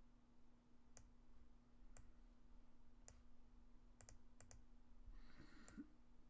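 Faint clicks of a computer mouse: single clicks about a second apart, then two quick pairs about four seconds in, over a low steady hum.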